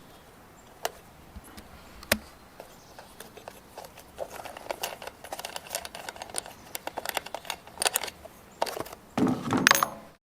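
Scattered light clicks, rattles and scrapes of hands working at a walk-behind mower's open carburetor, priming it with fuel from a squirt can, with a louder rustling clatter near the end.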